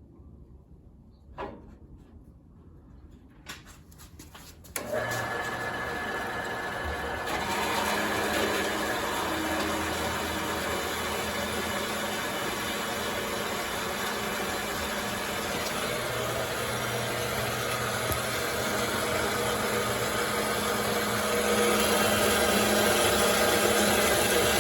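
A few light clicks, then about five seconds in a Harbor Freight band saw starts and runs steadily, its blade cutting slowly through 2-inch mild steel square tubing.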